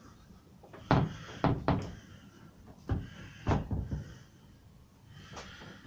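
Beech wardrobe doors being handled and shut against the frame: a series of sharp wooden knocks and thuds, three about a second in and three more about two seconds later.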